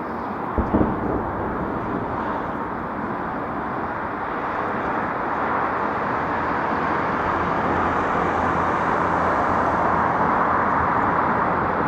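Steady outdoor background noise, traffic-like, slowly growing louder, with a couple of short low thumps under a second in.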